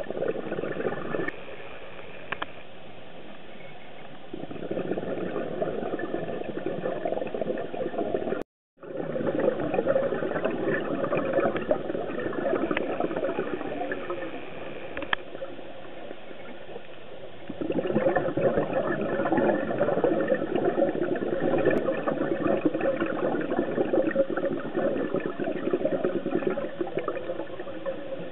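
Underwater sound heard through a camera housing: long spells of bubbling and gurgling from a diver's exhaled air, alternating with quieter steady hiss. The sound cuts out for a moment about eight seconds in.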